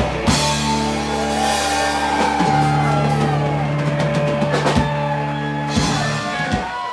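Live rock band with electric guitars, bass and drum kit holding long ringing chords over cymbal crashes and drum hits to close the song, cutting off just before the end.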